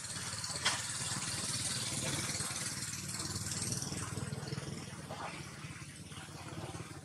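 A steady low mechanical rumble, like a small engine running, under a high hiss, with one sharp click about two-thirds of a second in.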